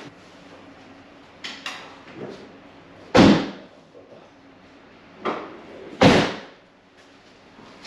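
Two heavy thuds about three seconds apart, with a few lighter knocks and clicks between them, as an engine hanging from a shop engine crane is handled and the crane is shifted.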